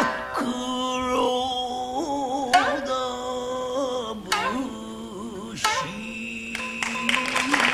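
Rōkyoku (naniwa-bushi) singing: a man's voice holding long, wavering notes, with a few sharp shamisen plucks.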